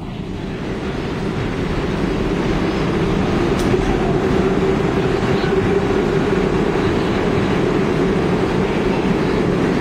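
New York City subway train running through an underground station: a steady rumble that builds over the first few seconds, then holds loud and even.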